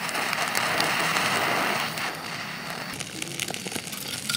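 Jet-flame torch lighter hissing steadily for about two seconds as it lights a fire starter under hard split firewood, cutting off sharply, followed by the starter crackling and popping as it catches.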